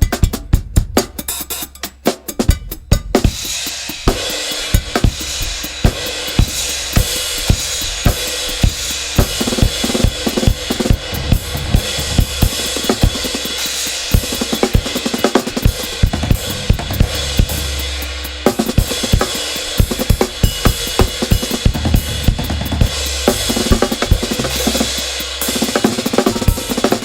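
Instrumental passage of a soul band: the drum kit plays on its own for the first few seconds, then the full band comes in with bass and ringing cymbals over a steady drum beat.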